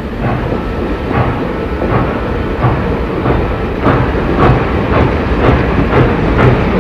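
Norfolk & Western Class J #603 4-8-4 steam locomotive and its 17-car passenger train in motion, with a rhythmic beat over a steady rumble. The beats grow quicker and louder.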